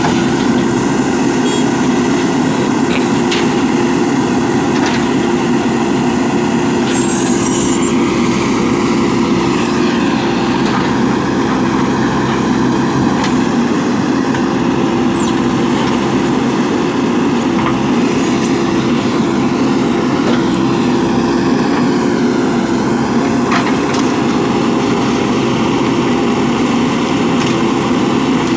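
Heavy diesel engine running steadily under load, a continuous low drone with a few faint clicks and knocks over it.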